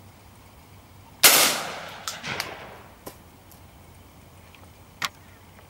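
A single shot from a Beretta Urika semi-automatic shotgun about a second in, echoing away over the next second and a half. Several smaller clicks and knocks follow.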